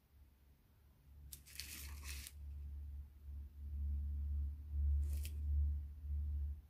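Paper scraping as a watercolour postcard is turned and slid across the table: a scrape about a second long a little over a second in, and a brief one near five seconds. A steady low rumble runs underneath.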